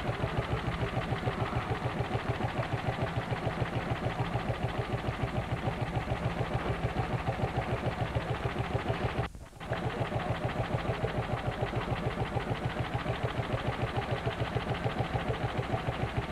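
Lanz Bulldog tractor's single-cylinder hot-bulb engine running with a steady, rapid, even beat. The sound drops out for a moment a little past halfway, then picks up again.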